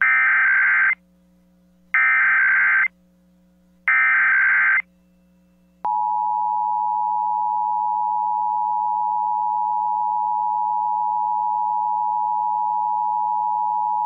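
Emergency Alert System SAME header: three short bursts of warbling digital data tones, each about a second long and two seconds apart. They are followed about six seconds in by the EAS attention signal, a steady two-tone note held for over eight seconds, which opens a Required Monthly Test broadcast over AM radio.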